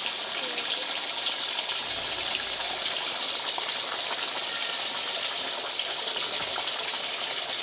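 A steady stream of water pouring into a large stainless-steel basin that already holds some water, splashing continuously.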